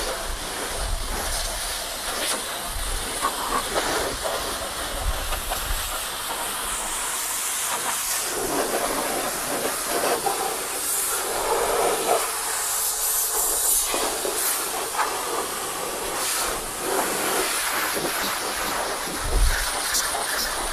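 High-pressure washer jet hissing and spattering as it is sprayed over a pickup truck's body panels and wheel arch, the hiss brightening and fading as the spray moves across surfaces.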